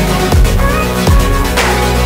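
Electronic background music with heavy bass and a steady beat.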